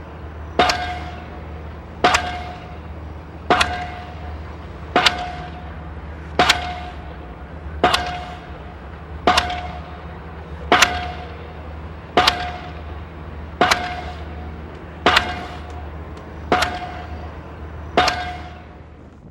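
Evenly spaced metal-on-metal strikes on a construction site, thirteen of them about a second and a half apart, each ringing briefly with a clang, over a steady low hum.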